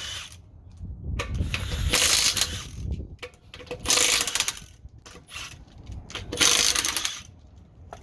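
Metal hand tools clicking and clinking in three bursts, each about a second long, with quieter gaps between them.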